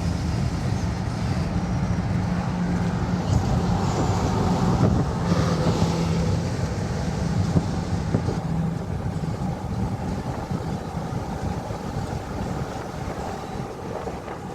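Train running by: a steady loud rumble with a low engine hum that fades out about nine seconds in.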